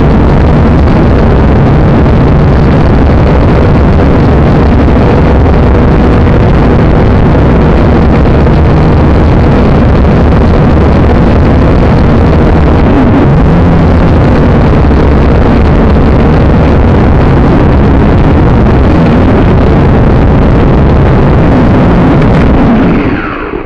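Small quadcopter drone's propellers and motors buzzing loudly, heard from the drone's own onboard microphone, the pitch wavering slightly as it manoeuvres. Near the end the motors spin down and the sound falls away as it lands.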